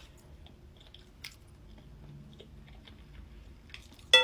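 Quiet chewing and small mouth sounds of eating noodles. Near the end comes one sharp clink with a brief ringing tone, chopsticks striking a ceramic bowl.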